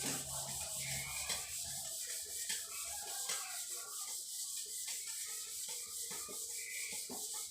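Steady hand rubbing and scraping on a part, with small scattered clicks and taps.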